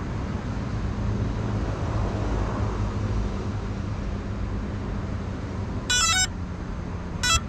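Steady outdoor rumble and hiss with a low hum, broken near the end by two short, buzzy electronic beeps: the first a quick run of stepped notes lasting about a third of a second, the second shorter about a second later.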